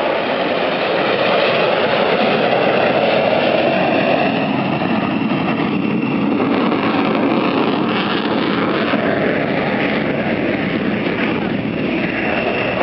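Jet noise from a low-flying F-16 fighter's single engine, a loud, steady rush as the jet passes low and climbs away.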